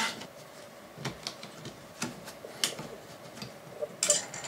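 Scattered light clicks and taps of hands handling a 3D printer's aluminium frame and gantry parts and a hand tool, with a short scrape about four seconds in.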